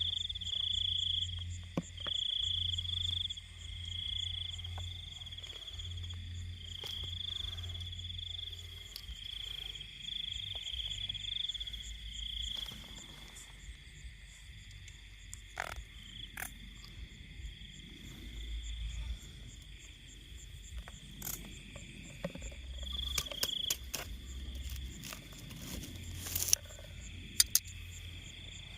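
Night chorus of frogs and crickets in a rice field. A high trilling call comes in runs of a second or two, stops for several seconds in the middle and starts again near the end, over steady insect buzzing and fast chirping. Scattered sharp clicks and knocks come through, the loudest a few near the end.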